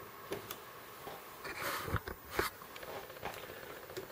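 Faint handling noises of a diecast model truck and its plastic packaging: scattered small clicks and taps, with a couple of brief rustles about halfway through.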